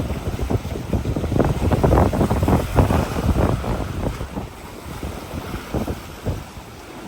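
Strong wind buffeting the microphone in uneven gusts, heaviest over the first few seconds and easing toward the end.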